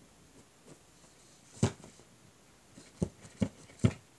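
Four sharp knocks: a single one about a second and a half in, then three in quick succession, about half a second apart, near the end.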